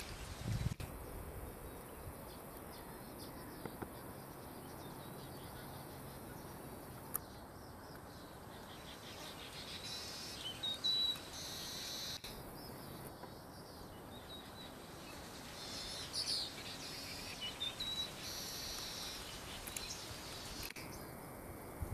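Outdoor swamp ambience: birds chirping now and then over a steady background hiss, with the background changing abruptly a few times.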